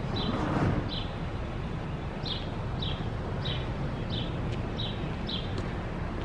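A bird chirping over and over, a short high chirp about every half second, over steady outdoor wind and low rumble, with a brief louder rush of noise about half a second in.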